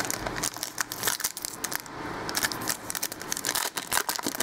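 Foil pack of trading cards crinkling and tearing as it is opened by hand: a rapid, irregular run of crackles.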